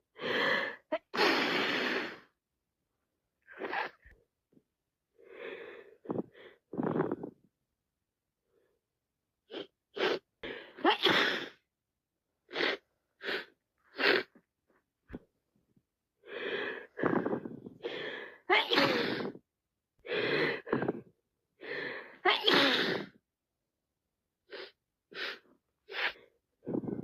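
A person with a cold sneezing over and over: a long run of sneezes coming in clusters, with short silent pauses between them.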